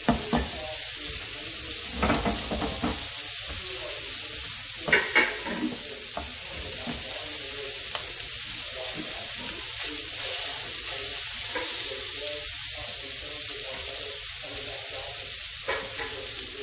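Salmon fillets sizzling steadily in hot fat in a frying pan, with a few short knocks against the pan.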